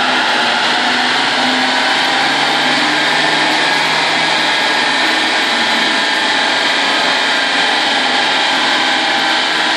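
Renault Megane 1.5 dCi four-cylinder turbodiesel running on a chassis dynamometer during a power test: a steady, loud rushing of the front tyres on the rollers and the large cooling fans, with a faint engine note underneath.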